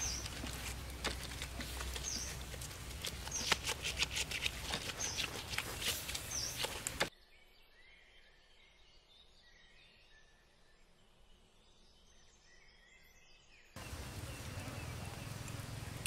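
Wood fire crackling and hissing under a crocodile roasting on bamboo spits, with a bird giving a short high call about every second and a half. About seven seconds in it drops abruptly to faint bird chirps, then the noisy crackling comes back near the end.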